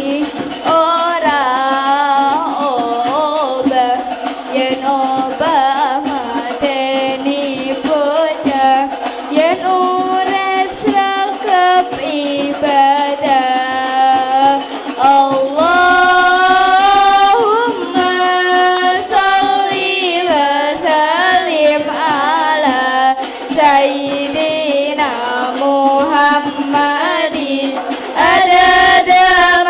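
A song: voices singing a melody over musical accompaniment, with a light jingling percussion.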